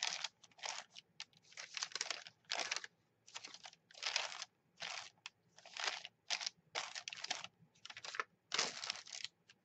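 An ink pad is dabbed and rubbed across crumpled notebook paper, making a quiet, uneven string of short scratchy rubs, about two a second.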